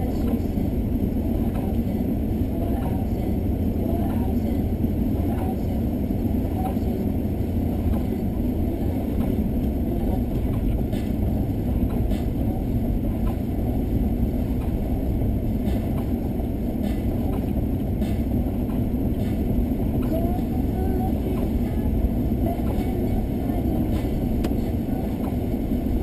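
Steady low rumble of a car driving on a snow-covered road, heard inside the cabin: engine drone mixed with tyre and wind noise, with a few faint ticks scattered through.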